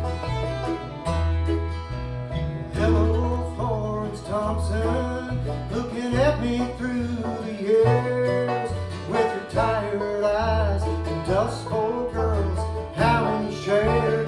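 Bluegrass-style band playing an instrumental intro: picked banjo and guitar over a steady, regular bass line, with sliding melodic lines above.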